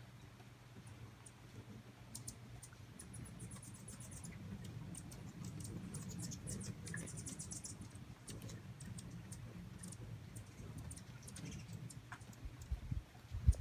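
Hummingbirds at nectar feeders chattering in rapid trains of thin, very high chips, busiest a few seconds in, over a low steady hum. A few low bumps near the end.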